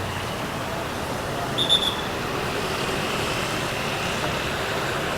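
Steady street traffic noise at a city intersection, with a brief high whistle about one and a half seconds in.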